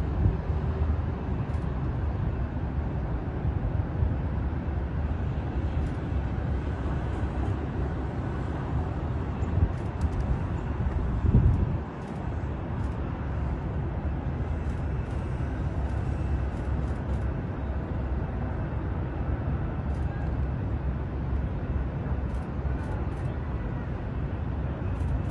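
Steady low outdoor rumble of a city heard from a height, with a brief louder swell about eleven seconds in.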